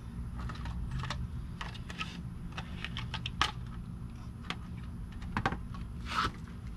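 Irregular light clicks and rustles of small plastic parts being handled, a bottle cap and funnel-type pieces, over a steady low hum.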